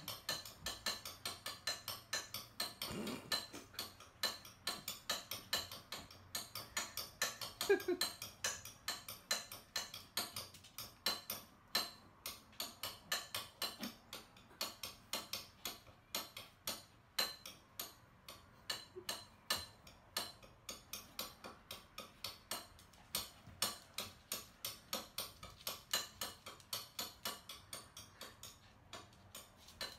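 Papillons' claws clicking on a wooden floor as the excited dogs prance and pace, a quick run of clicks about two or three a second, with a couple of brief dog whines early on.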